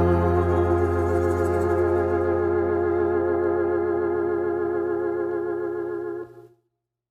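A soul band's final chord held out, led by a wavering Hammond-style organ over a deep bass note, fading slightly before it stops about six seconds in.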